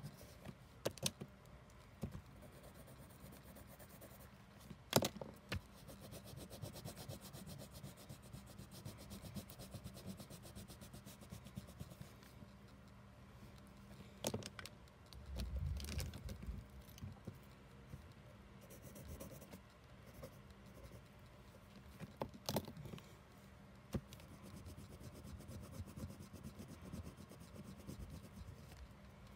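Paper being coloured in with quick back-and-forth scratchy strokes of a red colouring pencil, fairly faint. A few sharp taps and a brief low bump come a little past halfway.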